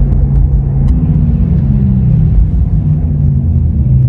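Porsche Taycan's electric sport sound system playing a synthesized engine note through its speakers while the car drives. It is a low, steady drone whose pitch shifts up and down a little. It is an artificial sound standing in for the exhaust note the electric car lacks, meant to let pedestrians hear it coming.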